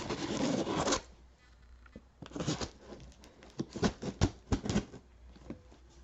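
Packaging rustling and tearing for about a second, then a quick run of sharp clicks and snips as scissors cut through the box's packing.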